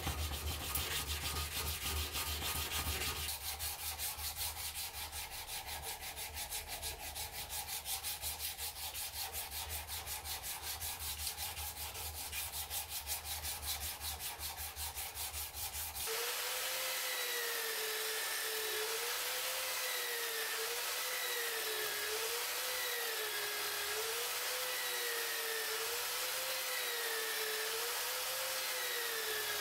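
A hand file rasping back and forth across a wooden knife handle in quick, even strokes. About sixteen seconds in, this gives way to the steady whir of a spinning abrasive disc on a power tool, smoothing the handle, with a hum that wavers slowly up and down in pitch.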